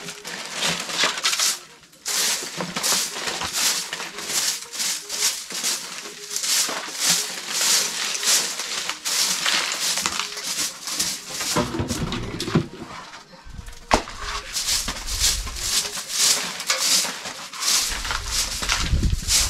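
Short-handled grass bundle broom sweeping a bare earth floor: quick, repeated swishing strokes.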